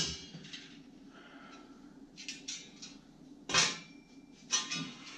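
Plasma-cut 10-gauge steel plate pieces clanking as they are handled and set down on a concrete floor: a sharp clank right at the start, lighter taps and scrapes around the middle, and two more clanks about three and a half and four and a half seconds in.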